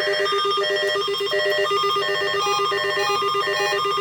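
Several NOAA weather radio receivers sounding their alert alarms at once for the weekly test: a fast, even low beeping layered over slower alternating higher beeps of different pitches.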